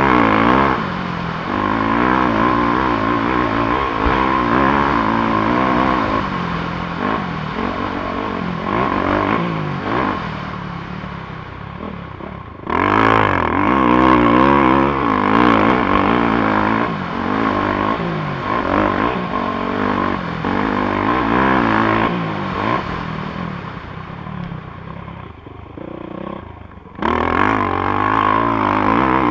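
450cc four-stroke motocross bike engine revving hard under throttle, its pitch rising and falling as the rider works through the gears. Twice the throttle eases off and the engine note drops, then it comes back on sharply.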